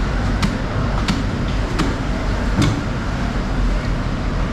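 Steady background din with four sharp clicks or knocks, roughly one every three-quarters of a second in the first three seconds.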